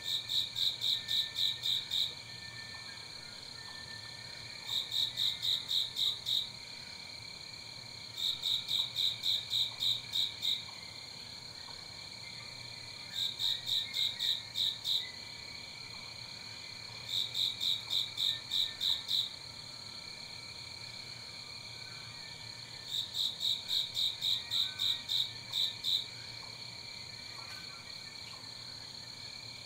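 Crickets chirping in trains of rapid chirps, about five a second. Each train lasts a second or two and comes back every few seconds over a steady high drone.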